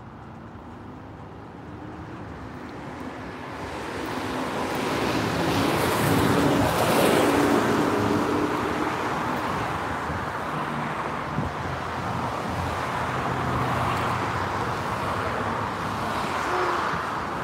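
Loud road traffic going by on a busy highway, swelling to a loud vehicle passing about six to seven seconds in and staying loud after, with wind on the microphone.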